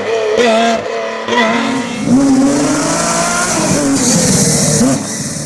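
Lancia Stratos's Ferrari Dino 2.4-litre V6 at high revs on a rally stage, with several quick breaks in the note from throttle lifts or gear changes in the first two seconds, then held on the throttle with the pitch wavering. A burst of hiss joins in about four seconds in.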